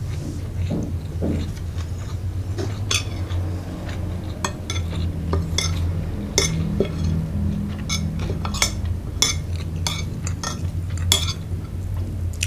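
Cutlery clinking and scraping against a plate in repeated sharp, irregular clicks, over a steady low hum.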